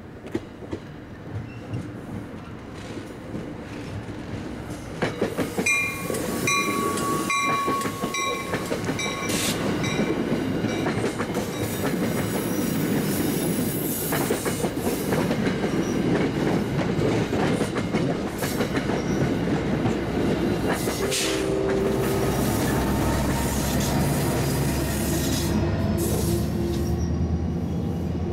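New Jersey Transit passenger train approaching and passing close by: the rumble of steel wheels on rail builds over the first few seconds into a loud, steady pass with clickety-clack over the rail joints. A short run of repeated ringing tones sounds about six to nine seconds in. Brief wheel squeals come near the end.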